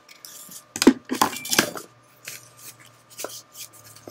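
Small cardboard shipping box being handled and opened by hand. A cluster of sharp knocks and scrapes comes about a second in, followed by lighter rustling and taps of cardboard.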